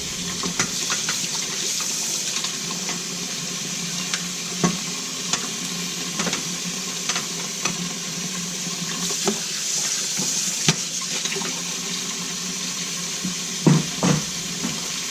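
Tap water running steadily into a sink as a dishwasher's plastic filter is rinsed clear of calcium buildup, with scattered sharp clicks and knocks of the part being handled.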